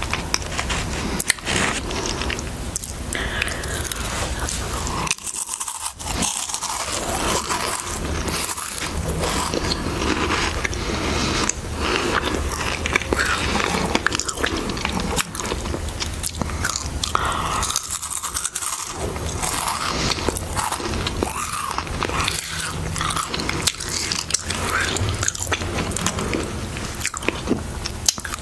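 Close-miked crunching and chewing of Harvest Snaps green pea and black bean snack crisps. There are crisp bites and dense crackly chewing throughout, with a couple of brief pauses.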